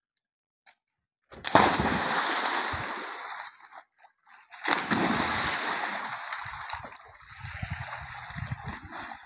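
People jumping into a swimming pool: a big splash about a second and a half in and a second about four and a half seconds in, each fading as the water settles, then smaller, uneven splashing from swimmers.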